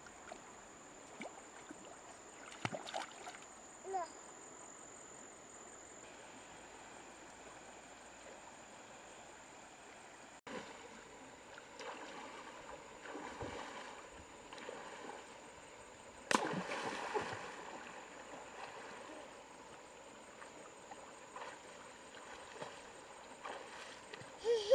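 Shallow river water flowing over stones, with several small splashes as a toddler steps and wades through it, the loudest about two-thirds of the way in. A steady high-pitched tone runs underneath, and there are a few short vocal sounds from the child.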